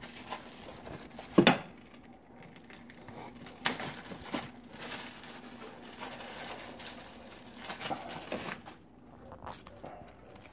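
Scattered knocks and clatters of things being handled on a kitchen counter, the loudest about a second and a half in, with some light rustling between them.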